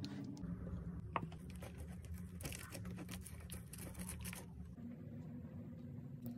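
Cheese being grated on a metal box grater: a quick run of short scraping strokes over a low steady hum.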